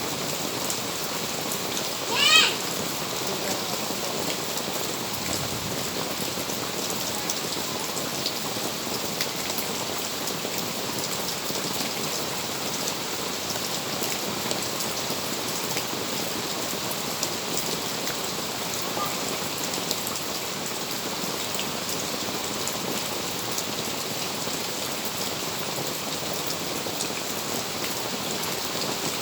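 Steady rain falling, with many small drop impacts ticking through it. About two seconds in comes one brief, loud, high-pitched cry.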